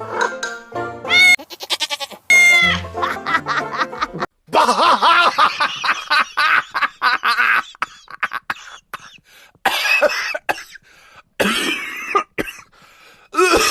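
Chopped-up remix audio: music and shrill voice-like cries spliced together, cutting off abruptly again and again with short gaps between the pieces.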